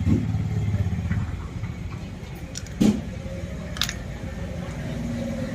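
A motor vehicle's engine running with a steady low rumble, louder in the first second, with a few sharp clicks a little past the middle.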